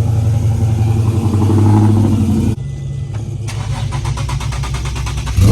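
Dodge Charger's V8 engine running and revving up over the first couple of seconds, then falling away abruptly to a quieter stretch with a fast regular ticking, before the engine comes back loud near the end.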